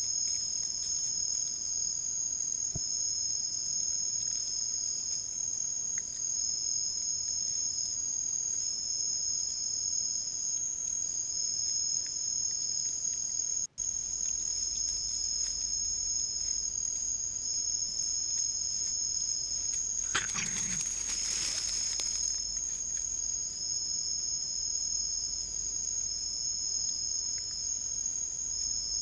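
Night chorus of crickets trilling steadily in two high pitches, one held and one pulsing on and off. A brief rustling noise comes about twenty seconds in.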